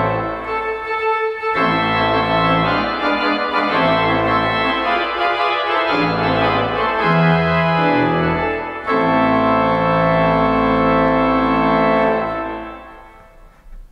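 Organ playing slow, sustained chords over a moving bass line; a final chord is held from about two-thirds of the way in and fades out near the end.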